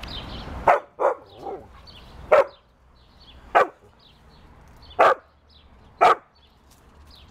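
Siberian husky barking at a Boxer through a fence: about six sharp single barks, roughly one a second, with a softer one among them.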